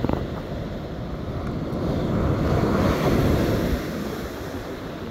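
Surf breaking and washing up the beach, with wind buffeting the microphone. A wave swells louder about two seconds in and dies away near four seconds.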